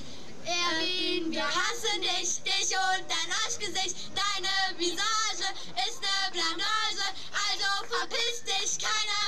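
Two young girls singing a song into a microphone; the singing starts about half a second in.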